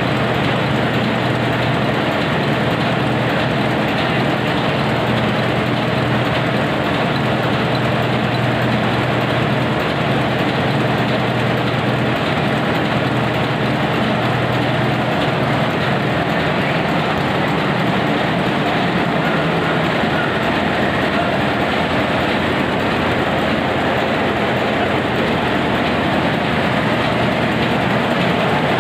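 Hanshin marine diesel engine running steadily at constant speed, with a deep, even hum that does not change.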